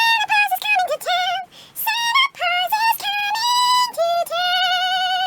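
A very high-pitched singing voice carrying a melody: quick wavering notes, then two long held notes in the last two seconds.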